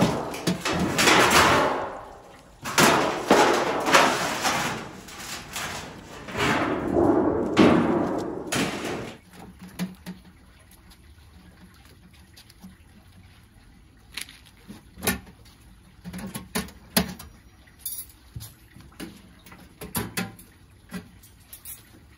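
Scrap oven being stripped: three long swells of rustling and crinkling handling noise, then scattered light clicks and taps of metal parts being handled.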